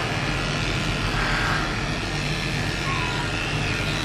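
Electric dog grooming clipper running with a steady motor hum as it shaves fur around a dog's tail and rear.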